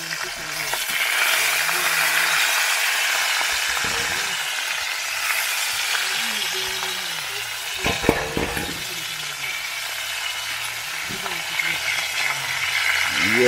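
Chicken back pieces frying in hot oil in a metal pot, a steady sizzle that swells about a second in, with a brief knock about eight seconds in.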